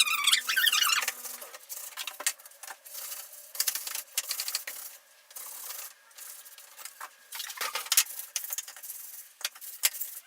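Damp cloth rubbing over cardboard pieces in irregular scraping strokes, with a short squeak about a second in and a few small knocks.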